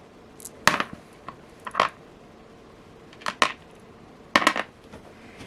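Small metal beads clicking and clinking against a hard surface as they are handled and set down: sharp clicks in four short clusters about a second apart.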